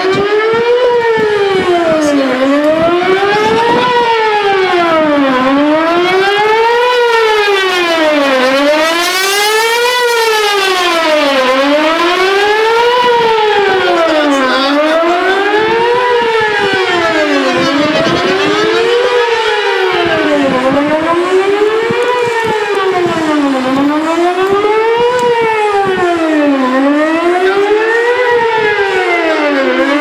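Outdoor tornado warning siren sounding a loud, steady wail, its pitch rising and falling smoothly about every three seconds.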